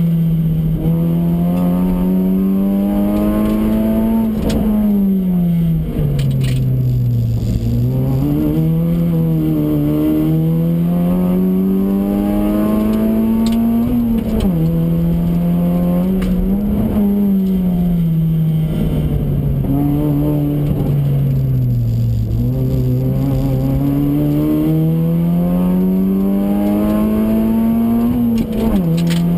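Honda Fit RS (GE8) 1.5-litre four-cylinder engine heard from inside the cabin at full throttle on a race track. It revs up through the gears, dropping sharply in pitch at each upshift, and falls away twice as the car slows for corners before pulling hard again.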